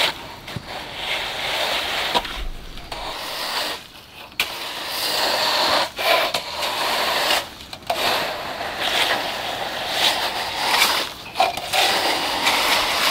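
A tool scraping over rough, gritty material in repeated strokes, each a second or two long, with brief pauses between.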